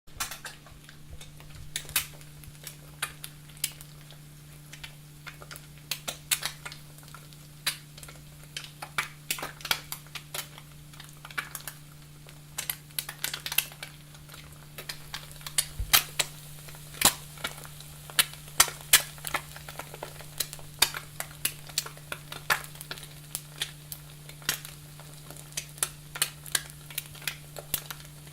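Eggs frying in a pan: a steady sizzle with many irregular sharp pops and crackles of spitting fat, over a steady low hum.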